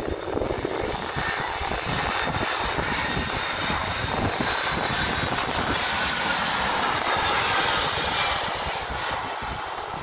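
Boeing 757-200 with Pratt & Whitney PW2037 turbofans on final approach, passing low overhead. A jet roar with a high fan whine builds to its loudest about eight seconds in, then eases off as the jet goes on down the runway. Wind buffets the microphone throughout.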